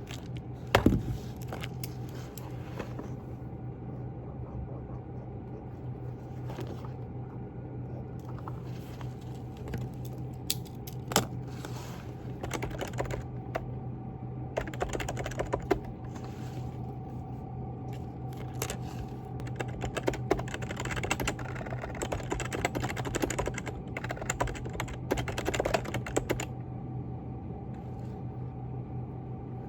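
Typing on a computer keyboard in irregular bursts of key clicks, pausing between runs, over a steady low hum.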